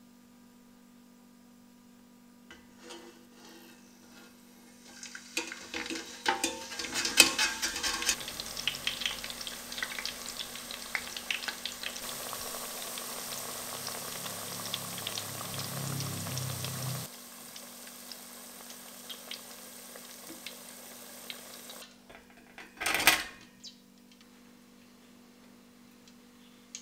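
Raw purple and yellow potato sticks frying in hot oil in a steel pot, a dense crackling sizzle for the par-fry. There are sharp metal clinks from the wire fry basket as it goes in, and the sizzle cuts off suddenly. Later come a few light clicks and one short, loud metallic clatter.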